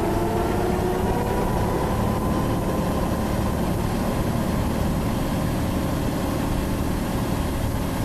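Tractor engine running steadily while a rear-mounted drum mower cuts grass. A faint whine rises gently in pitch over the first few seconds.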